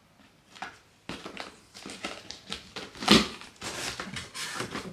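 Hands rummaging in a large cardboard shipping box: irregular rustling, crinkling and scraping of cardboard and packing material, loudest about three seconds in.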